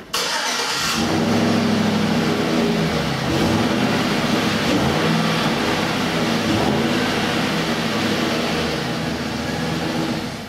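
2011 GMC Sierra pickup's engine starting and running through its stock factory exhaust, heard at the tailpipe. It catches with a short flare at the start, then runs steadily, its pitch dipping and rising slightly a couple of times.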